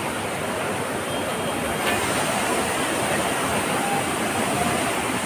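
Fast mountain river rushing over rocks below a bridge, a steady, even roar of white water.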